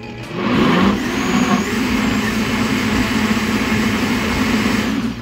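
Countertop blender motor switching on about half a second in, briefly rising in pitch as it spins up, then running steadily as it purées a full jar of yam, apple and carrot juice, and stopping at the end.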